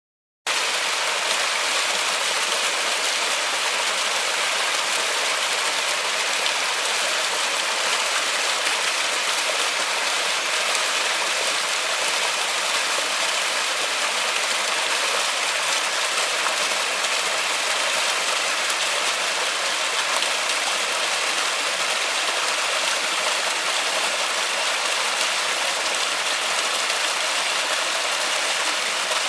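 Steady rain falling in a forest, an even hiss of countless drops with no distinct hits. It starts abruptly out of dead silence about half a second in.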